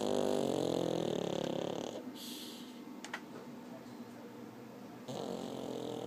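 Pug snoring in deep sleep. One pitched snore lasts about two seconds and is followed by a short hissing breath. The next snore begins about five seconds in.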